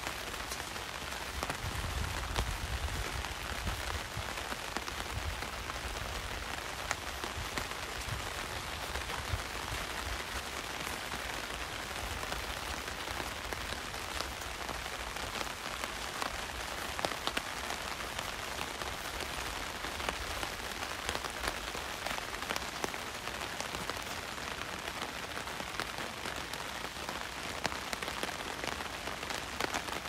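Heavy rain falling steadily, with many sharp drops tapping on an umbrella overhead. A low rumble rises briefly about two to four seconds in.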